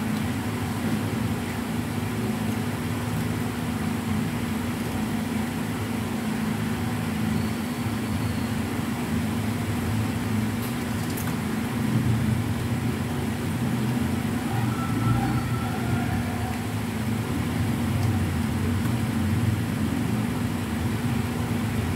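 A steady low machine hum, with a few faint clicks about ten to eleven seconds in.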